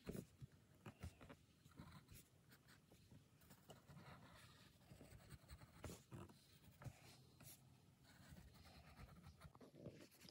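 Pencil lead scratching faintly on drawing paper in short, irregular strokes.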